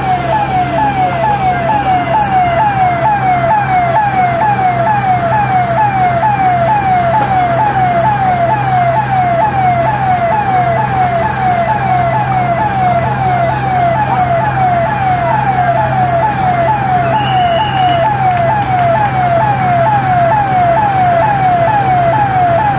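Emergency-vehicle siren sounding in rapid falling sweeps, about two a second, over a steady low hum.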